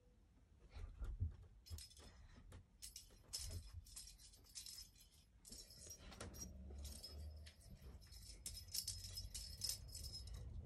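Plastic cage-ball cat toy on a wand, jingling and rattling in quick irregular shakes as a kitten bats at it, with soft rustling and thumping against the plush bed.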